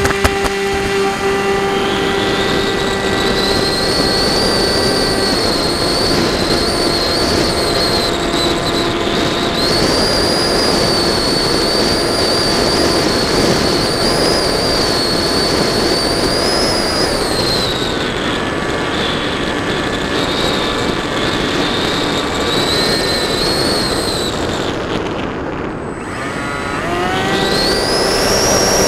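Electric motor and propeller of a Pioneer FPV model plane heard from its onboard camera, running at high throttle as the plane takes off and climbs: a steady high whine over rushing air. The whine eases off about two-thirds of the way through, nearly cuts out near the end, then rises quickly again.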